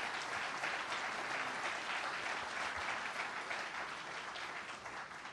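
Audience applauding, many hands clapping in a steady patter that fades away near the end.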